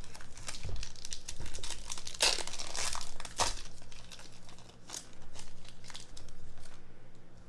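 Foil wrapper of a Topps Chrome trading-card pack being torn open and crinkled, an irregular crackling rustle that is loudest about two to three and a half seconds in.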